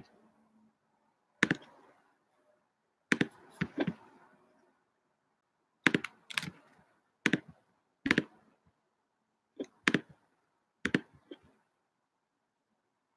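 Sharp computer clicks and key taps, singly and in short groups of two or three, a second or two apart, as messages are typed and sent.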